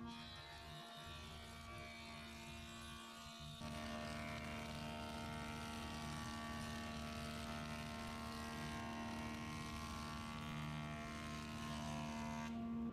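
Jointer (surface planer) running with a steady electric hum, its cutterhead planing a length of 4x2 pine fed across the tables. The sound gets louder a few seconds in and stays there.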